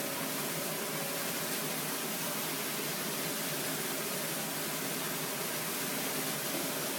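A steady, even hiss with no distinct knocks or clicks, unchanging throughout.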